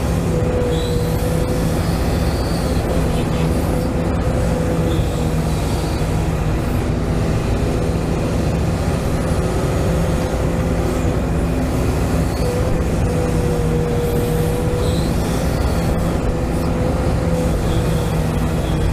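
Scale model RC excavator running as it digs: a steady mechanical hum with a high whine from its motor and pump that drops out briefly and returns slightly higher about halfway through.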